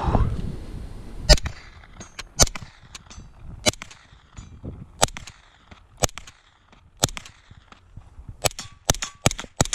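Suppressed B&T APC9 Pro 9mm carbine firing single shots about a second apart, then a quicker string of four or five shots near the end.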